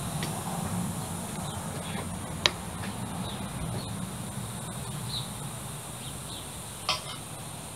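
Outdoor background with a steady low rumble and faint, short bird chirps. A sharp click about two and a half seconds in, and a metal clink near the end as a spoon scoops shortening into the cast iron Dutch oven.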